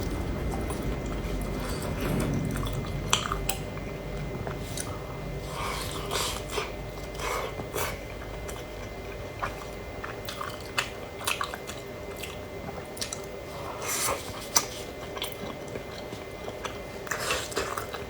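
A person chewing and biting food, with irregular sharp clicks of mouth noise.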